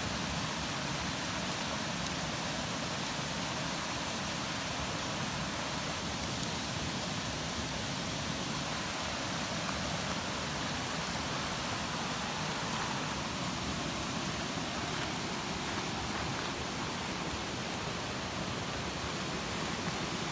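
Wood campfire burning, a steady rushing noise with a few faint, sharp crackles scattered through it.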